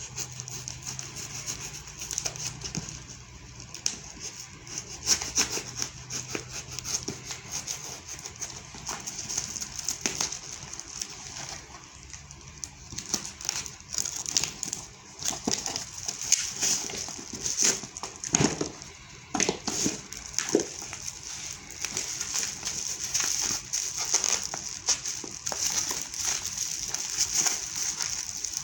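Parcel packaging being handled and torn open by hand: irregular crinkling, crackling and rustling with sharp little snaps.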